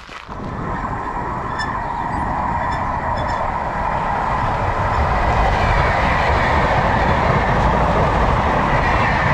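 Wind rushing over the microphone, with tyre rumble, while riding a bicycle at speed. It starts suddenly, swells over the first few seconds, then holds steady.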